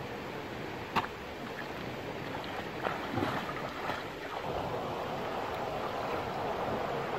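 Shallow stream water running over stones, with splashing as a person wades barefoot through it; a sharp knock about a second in and a few short splashes around three to four seconds in.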